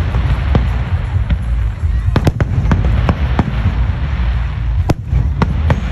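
Aerial fireworks shells bursting in quick, irregular succession: many sharp bangs, bunched about two seconds in and again near the end, over a continuous low rumble.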